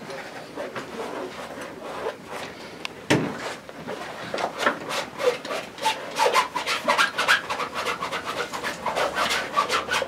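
Paintbrush scrubbing oil paint onto a stretched canvas in short quick strokes. The strokes are sparse at first, then come thick and fast after a single knock about three seconds in.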